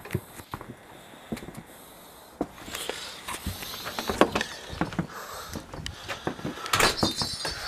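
A house door being opened and shut, with footsteps and scattered knocks from a handheld camera being moved about; a louder, harsher rush comes near the end.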